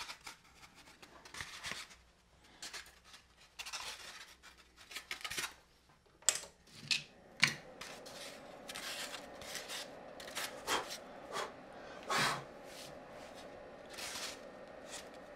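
Hands handling foam insulation-board fuselage pieces and cardstock templates: irregular rubbing, scraping and light taps as the card is pulled away from the foam. A faint steady hum runs underneath from about halfway through.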